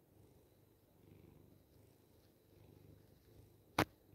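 Domestic cat purring close to the microphone, a low rumble in slow swells. A single sharp click near the end is the loudest sound.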